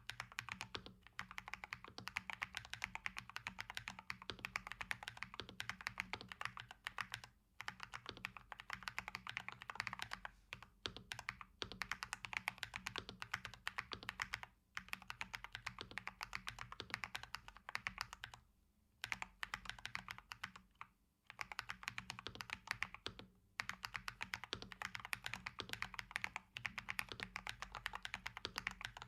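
Fast continuous typing on a KBD67 Lite mechanical keyboard with original Holy Panda tactile switches, rapid key clacks with a few short pauses.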